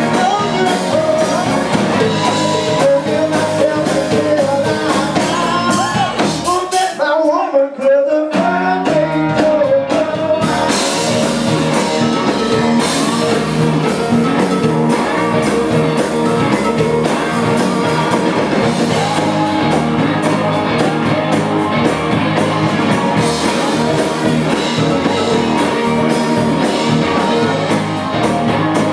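Live blues-rock band playing: electric guitars, electric bass and drum kit. About seven seconds in, the bass and drums drop out for a second or so, leaving a lone bending melodic line, before the full band comes back in.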